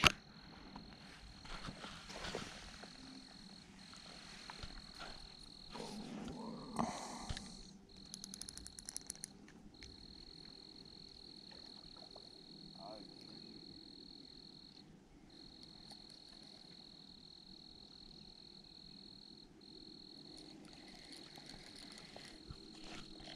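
A calling cricket's high, steady trill, held for several seconds at a time with short breaks between. A few brief handling noises and a quick run of clicks sound about a third of the way through.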